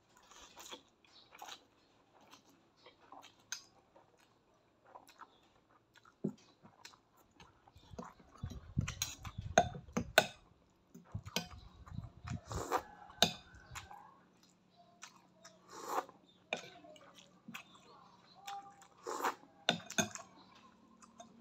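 A person eating instant noodles: slurping and chewing mouthfuls, with a fork and spoon clinking and scraping against a ceramic bowl now and then in short, irregular sounds.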